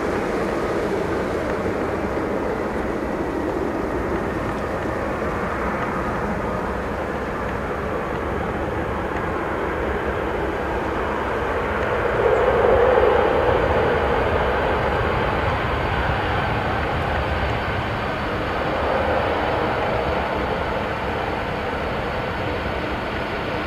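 Boeing 747 freighter's four turbofan engines running as the jet rolls along the runway: a steady jet rumble and hiss with a brief swell about twelve seconds in, and a faint high engine whine coming in over the second half.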